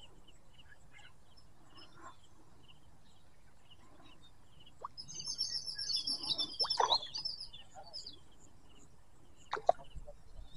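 Birds chirping repeatedly in short high notes, with a louder burst of dense twittering in the middle. A few short sharp knocks come through, the loudest near the end.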